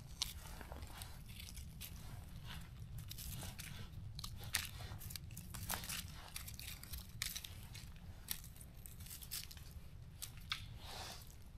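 Irregular small snips, crunches and rustles of wild mushrooms being cut with scissors and picked from the leafy forest floor, over a low steady rumble.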